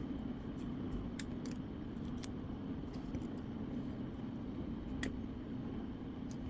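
Steady whoosh of a hot air rework station's blower, with a few light clicks of small tools on the phone board.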